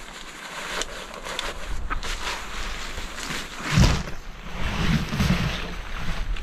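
Nylon tarp rustling and crinkling as it is pulled from its sack and shaken open. Wind buffets the microphone with a low rumble a little before four seconds in, the loudest moment, and again around five seconds.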